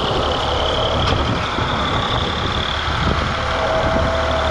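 Tractor's diesel engine running steadily as it pulls a trolley loaded with sugarcane, with a steady high-pitched tone heard alongside it.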